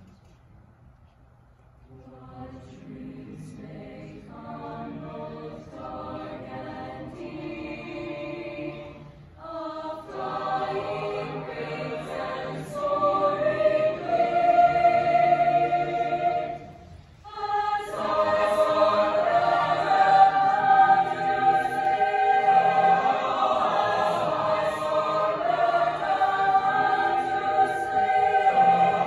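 Mixed choir singing, entering softly about two seconds in and growing louder, with brief breaks between phrases; fullest and loudest over the last ten seconds.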